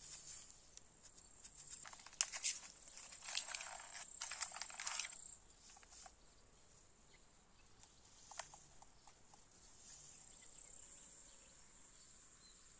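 Faint, steady, high-pitched chirring of insects, most likely crickets or grasshoppers. For about three seconds, starting about two seconds in, a close cluster of crackling, rustling clicks sounds over it, with a brief crackle again about eight seconds in.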